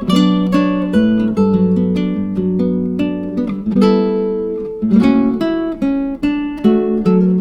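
Background music: an acoustic guitar playing plucked notes and strummed chords, each one struck sharply and left to ring and fade.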